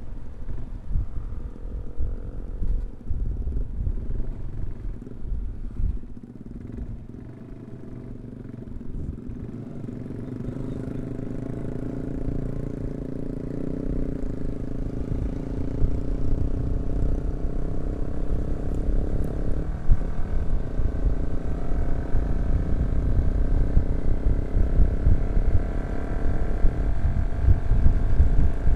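Yamaha R15 V3 single-cylinder motorcycle engine running on the move. The engine is quieter a quarter of the way in, then grows louder and rises slightly in pitch as the bike picks up speed.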